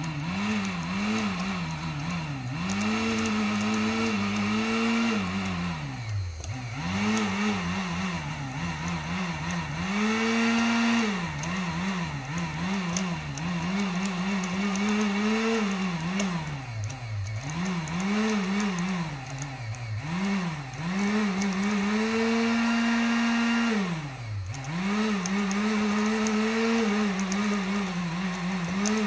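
1500-watt heat gun's fan motor running with its pitch wobbling rapidly and sagging deeply several times, as a loose hot wire is made to arc at the receptacle and keeps interrupting its power, with sharp crackles from the arc. The motor keeps running throughout: the combination AFCI breaker feeding it is not tripping on the series arc.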